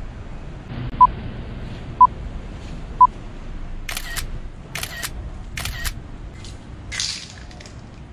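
Smartphone camera on a tripod running its self-timer: three short beeps a second apart, then three shutter clicks in quick succession as it takes the photos.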